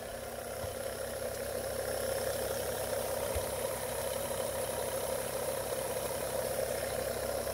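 3D-printed magnet rotor of a Hall-sensor pulse motor spinning on its shaft bearings, a steady mid-pitched whirring hum. The rotor is running true, without wobble.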